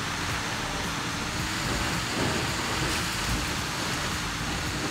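A vehicle working its way down a steep, rough dirt track: a low engine hum under a steady noisy rush of wheels and body noise, with a few brief knocks.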